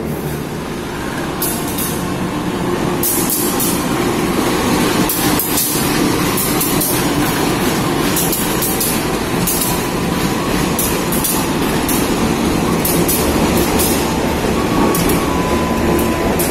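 Train passing: a CC201 diesel-electric locomotive runs with a steady low drone while the wheels clack over rail joints in an irregular run of sharp clicks.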